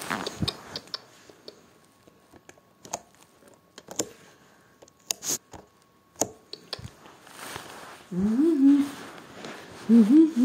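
Scattered light clicks and taps of handling, then, about eight seconds in and again near the end, a person's voice making short hummed sounds that rise in pitch.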